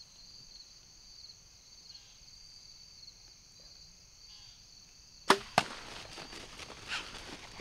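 Compound bow shot at a doe: a sharp crack of the string release about five seconds in, then a second sharp smack about a third of a second later as the arrow strikes, followed by rustling and footfalls of deer bolting. Crickets chirp steadily before the shot.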